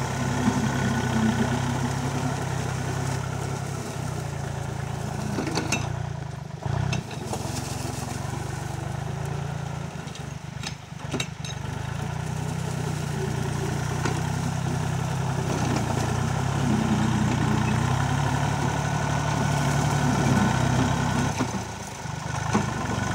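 Sunshine L1-20 compact tractor's diesel engine running steadily while it pulls a rear-mounted slasher mower through tall grass, briefly dipping twice near the middle.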